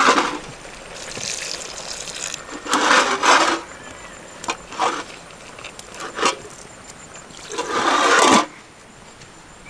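Water gushing and splashing in several bursts, the loudest about three seconds in and again near the end.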